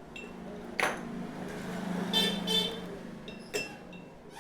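A motor vehicle going by with its horn tooting twice about halfway through, and a couple of sharp clicks before and after.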